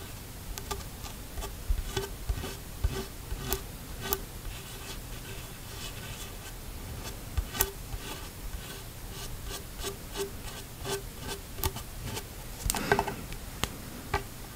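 Long fingernails tapping and scratching on a Cressi snorkel's plastic tube: quick, irregular clicks with a faint hollow ring. A louder burst of handling noise comes near the end.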